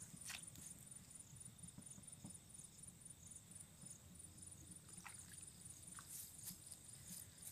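Near silence: a faint, steady, high pulsing trill of crickets, with a few faint clicks.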